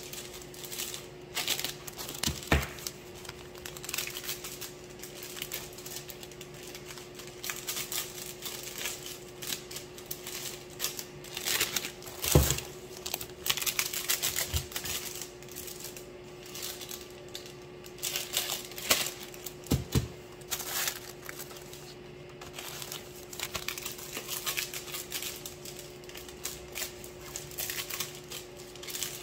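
Clear plastic packaging bags crinkling and rustling as pieces of butter bar are handled and slid into them, with a few sharper knocks along the way. A steady low hum runs underneath.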